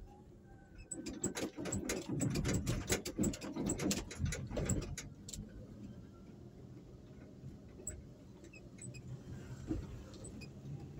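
Rapid rattling and clicking starts about a second in and lasts about four seconds, over the low steady hum of the moving vehicle that carries the camera.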